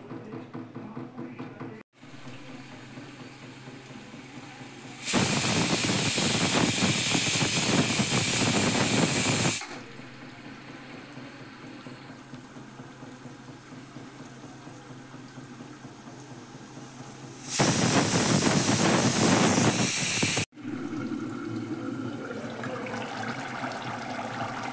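Aluminium pressure cooker whistling twice: steam rushing out hard past the weight valve, once for about four and a half seconds and again for about three. Each whistle is the cooker venting built-up steam pressure, the whistles counted to time the cooking.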